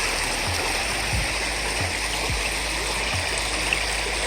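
Steady rushing of a creek and its falls, with short low thuds about every two-thirds of a second.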